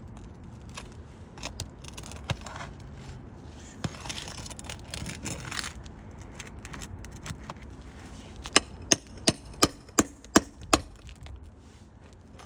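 Scraping and rustling while roof shingles are loosened, then seven sharp strikes about three a second, a new nail being driven into the roof.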